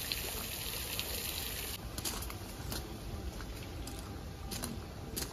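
Footsteps crunching on a gravel path, a few uneven steps. A steady hiss stops about two seconds in.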